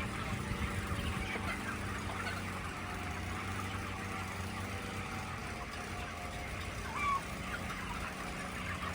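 A flock of chickens chirping and clucking together, many short overlapping calls over a steady low hum, with one louder call about seven seconds in.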